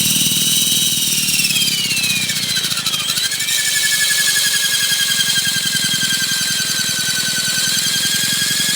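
Align T-Rex 450 electric RC helicopter running with a high-pitched motor and gear whine over a lower rotor hum. About a second and a half in, the whine sags in pitch, bottoms out near three seconds, then rises back and holds steady as the headspeed recovers.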